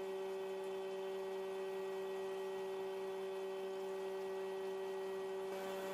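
Steady machine hum made of several held tones, from a Tesker die thread roller running as its dies roll an Acme thread onto a steel bar.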